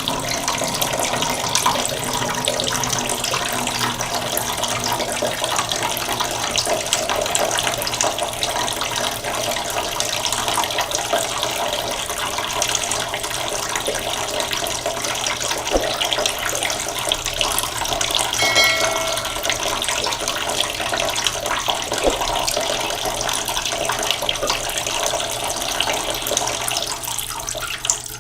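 Waterfall: falling water splashing with a steady, unbroken rush. A short pitched call or whistle cuts in briefly about two-thirds of the way through.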